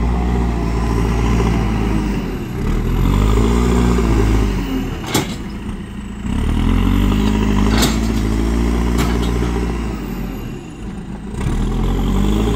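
JCB 4CX backhoe loader's diesel engine revving up and easing back down twice as it works, with two sharp knocks from the machine midway through.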